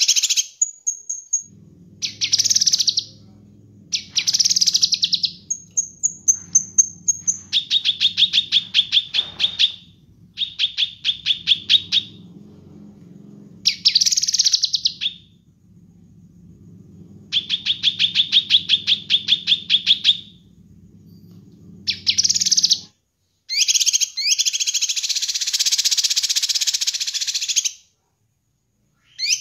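Cucak kinoi, a leafbird, singing: short whistled phrases alternate with fast rattling trills of rapidly repeated notes. Near the end comes a few seconds of harsh, dense chattering. A low steady hum lies under most of the song.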